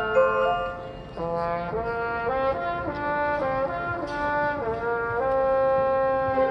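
Marching band brass section playing in chords. A held chord fades out about a second in, then a run of changing chords leads into a long held chord near the end.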